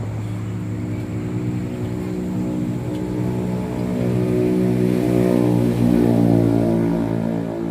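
An engine running at a steady speed, growing louder about halfway through and easing off near the end.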